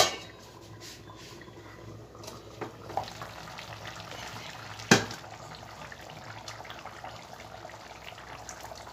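Chicken curry gravy bubbling at a steady boil in a steel pot, with a sharp clank of the steel lid at the very start and a single clink about five seconds in.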